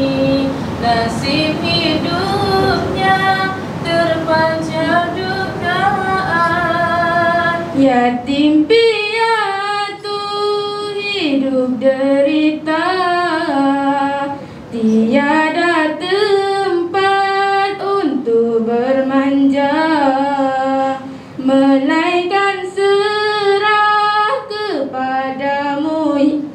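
A girl singing a Malay song about orphans into a microphone, in phrases with long held notes.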